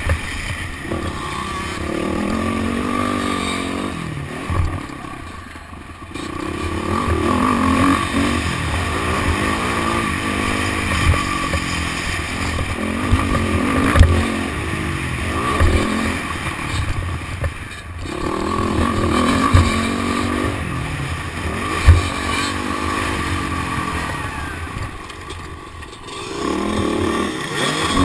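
Motocross dirt bike engine revving hard and easing off around the track, its pitch climbing and falling with the throttle and shifts, and briefly dropping away several times. Sharp knocks stand out over the engine a few times.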